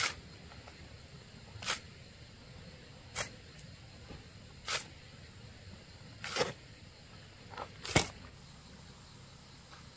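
Short scraping strokes of a tool working wet cement mortar, repeated roughly every second and a half, the loudest one near the end.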